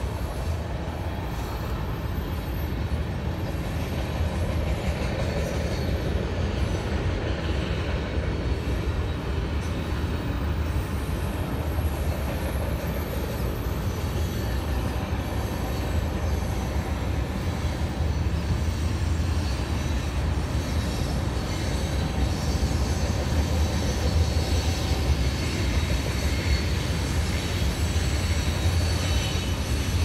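Freight train cars rolling past on the rails: a steady low rumble that grows slightly louder toward the end, with faint high-pitched wheel squeal.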